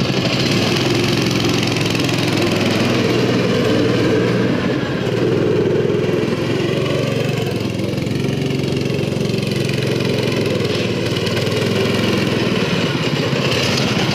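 Small Briggs & Stratton engine on a home-built motorized wagon running steadily as the wagon is ridden, its pitch wavering with the throttle and dipping briefly about five seconds in.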